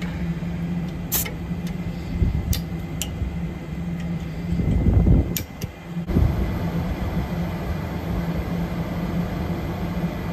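Daikin VRV III outdoor unit running: a steady compressor hum under the rush of its fan, with a few faint ticks.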